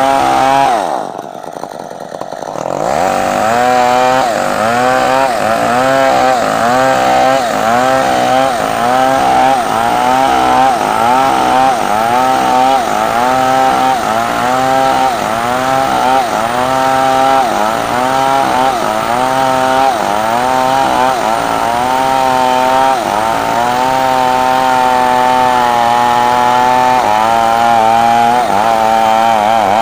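Stihl MS 381 two-stroke chainsaw ripping a timber lengthwise, running at full throttle under load. Its engine note dips and recovers about once a second as the chain works through the cut. About a second in, it drops briefly to a lower, quieter note before picking back up to cutting speed.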